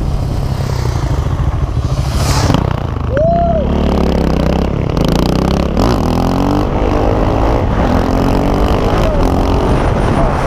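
Husqvarna 701's single-cylinder engine running under way through an Akrapovic silencer, its note rising and falling several times as the rider works the throttle.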